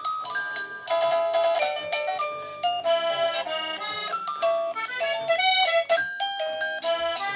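Electronic melody doorbell playing a tune of quickly changing single notes in a clean synthesized tone.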